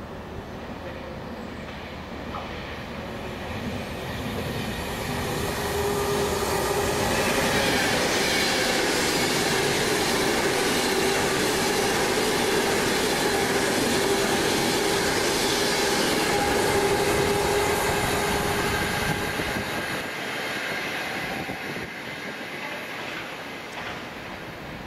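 A train passing through the station on the main line: the rumble of wheels on rail builds over a few seconds, stays loud for about a dozen seconds with steady whining tones running through it, then eases off near the end.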